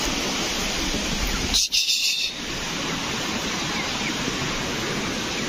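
Steady rushing of a rain-swollen stream, with a short high bird call about two seconds in.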